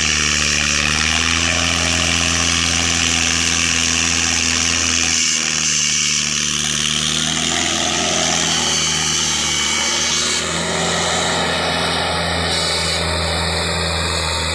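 Mahindra Arjun Ultra 555 tractor's diesel engine running steadily under load as it pulls a heavily loaded sugarcane trailer, its pitch shifting slightly a few times.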